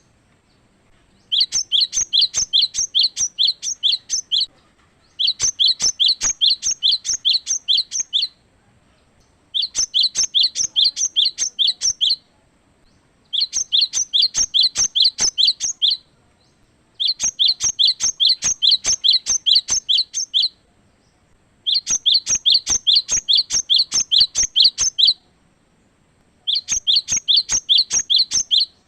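Cinereous tit (gelatik batu) singing loudly in repeated phrases. Each phrase is a fast run of about a dozen identical high notes lasting about three seconds, followed by a pause of about a second, seven times over.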